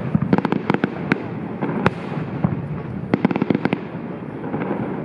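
Fireworks crackling: a quick run of sharp pops about half a second in, a single sharper crack near two seconds, and another rapid cluster of pops about three seconds in.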